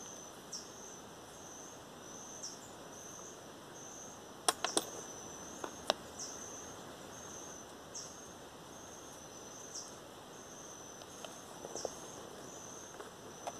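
A steady, high-pitched insect trill that breaks off briefly about every two seconds. A few sharp clicks come about a third of the way in.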